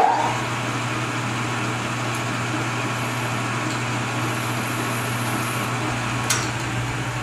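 Metal lathe spindle running steadily at speed with a rifle barrel chucked, as a small chamfer is cut on the muzzle end: a steady hum under an even whirring hiss. A single sharp click about six seconds in.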